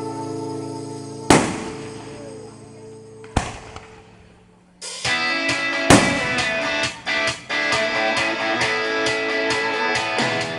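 Fireworks bursting with sharp bangs, three times (about one, three and a half, and six seconds in), over music. One song tails off into a short lull, then a new guitar-led song starts loud about five seconds in.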